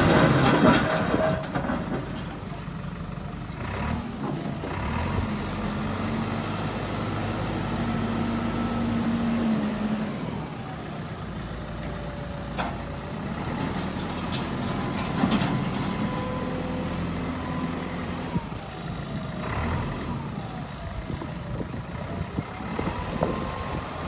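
JCB 3DX backhoe loader's diesel engine running as the machine drives and turns on dirt. Its pitch rises and falls with the throttle, and it is loudest at the very start.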